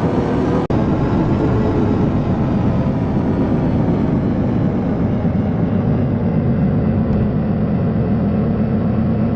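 Loud, steady rumbling noise from heavily processed, distorted logo audio, with a brief dropout under a second in.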